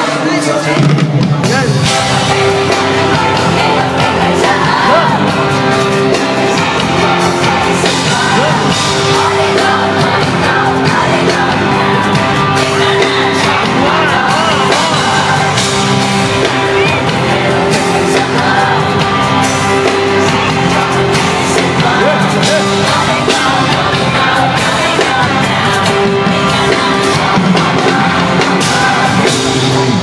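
Live concert music from the arena sound system: an amplified pop/hip-hop track with a singer over steady bass notes, heard from among the audience with fans yelling and shouting along.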